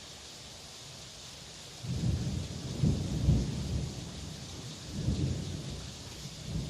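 Heavy rain falling as a steady hiss. About two seconds in, thunder breaks in sharply and rolls on as a low rumble, swelling again a few seconds later.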